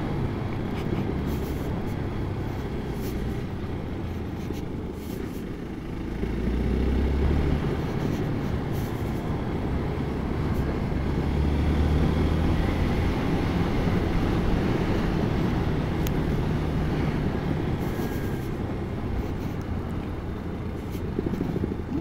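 Hero XPulse 200 4V single-cylinder motorcycle engine running steadily while riding, with a low rumble of wind on the microphone. It gets louder twice, about six and about eleven seconds in.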